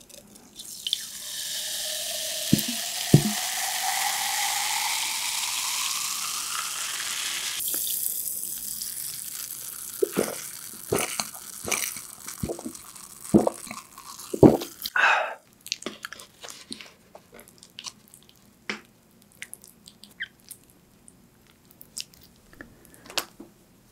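Dark soda poured from a plastic bottle into a glass mug, fizzing, the pitch of the pour rising as the mug fills, stopping about eight seconds in. Then gulps and swallows as the soda is drunk, a run of short wet sounds a few seconds long, followed by faint small sounds.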